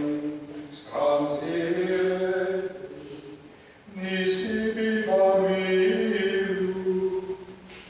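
Unaccompanied liturgical chant: slow, long-held sung notes that move in small steps in pitch, with a breath between phrases about halfway through.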